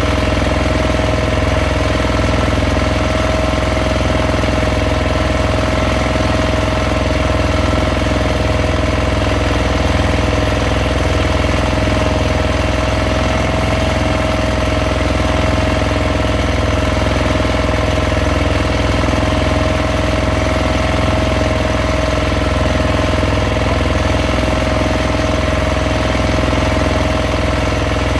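A fishing boat's engine running loud and steady at constant speed, a low drone with a steady mid-pitched hum over it.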